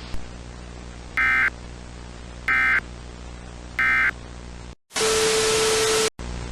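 Emergency Alert System end-of-message signal: three short, identical bursts of warbling digital data tones about 1.3 s apart. About a second later comes the loudest sound, a burst of static with a steady low tone, which cuts off abruptly.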